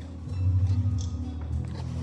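Background church music with sustained low bass notes, one of them swelling louder about a third of a second in.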